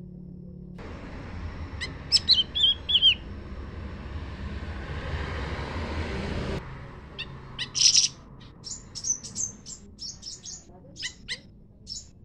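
Small forest songbirds calling: a few quick falling chirps, then a run of short, sharp high chirps from about seven seconds on, the loudest near eight seconds. A steady rushing hiss starts about a second in and cuts off abruptly after about six and a half seconds.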